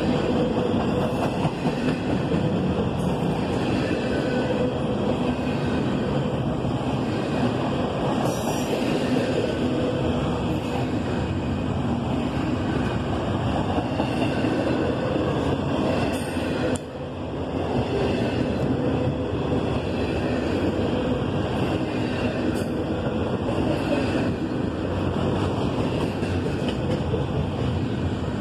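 Intermodal freight train's double-stack well cars rolling past at close range: a steady rumble and rattle of steel wheels on rail, with a faint, thin wheel squeal coming and going.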